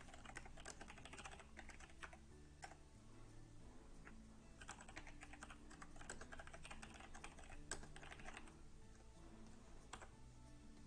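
Typing on a computer keyboard: two quick runs of keystrokes, with single key presses between them and near the end, over a faint low hum.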